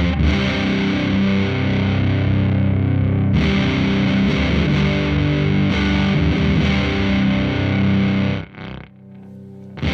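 Electric guitar through a FuzzHugger FX Lab Ratchet fuzz pedal set to low gain with the Ratch gating knob turned down: a textured, gated fuzz tone. About eight and a half seconds in the gate chops the sound off suddenly, and the playing comes back just before the end.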